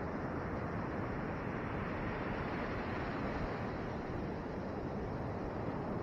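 Ocean surf breaking and washing up the beach, with wind on the microphone: a steady rushing noise.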